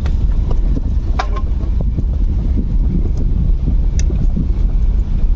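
Car driving along a rough dirt road, heard from inside the cabin as a steady low rumble of road and wind noise, with a couple of light clicks.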